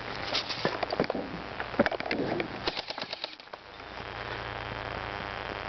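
Airsoft guns firing: scattered sharp cracks, then a short rapid burst about two and a half seconds in, followed by steadier low background noise.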